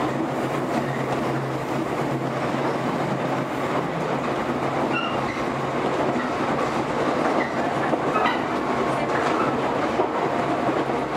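JR 115 series electric multiple unit running at steady speed: continuous rumble of wheels on rail and traction motor hum, with a few brief faint high squeaks partway through.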